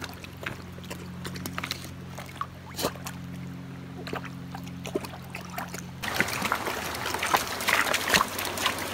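English bulldog lapping and splashing water from a shallow creek, with irregular wet slaps over the trickle of the stream. About six seconds in, the louder rush of flowing water takes over.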